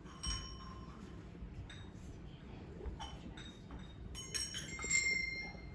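Bells ringing a few scattered single notes, each struck note ringing on briefly; the loudest comes about five seconds in.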